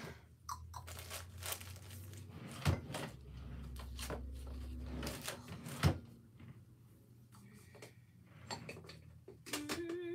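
Someone rummaging through craft supplies to find a ribbon: rustling and handling noises, with two sharp knocks about three and six seconds in and a low hum through the first half.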